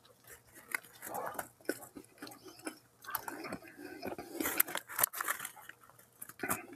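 A person chewing a mouthful of chicken sandwich up close, with irregular wet clicks from the mouth.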